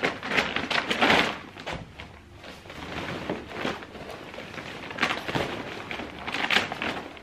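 Large reusable shopping bags and a fabric bag rustling and crinkling as they are handled and packed, in irregular bursts, loudest about a second in and again near the end.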